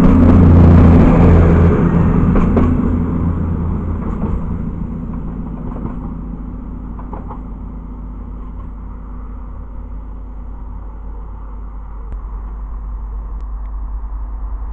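A CrossCountry Voyager diesel multiple unit passing close by, its underfloor diesel engines droning with a low pitched hum. The sound fades over the first few seconds as it pulls away, leaving a steady low rumble.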